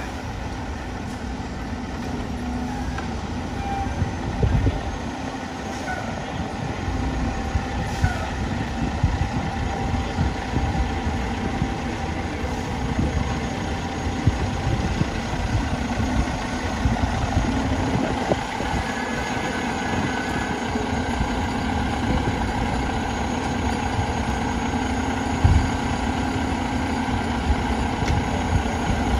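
Fire engine's diesel engine running steadily as the pumper pulls out of its bay and into the street, with a few short knocks along the way.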